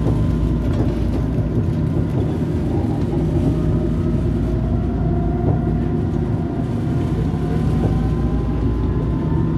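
Eurotram running with a steady low rumble, and an electric whine rising slowly in pitch as the tram gathers speed.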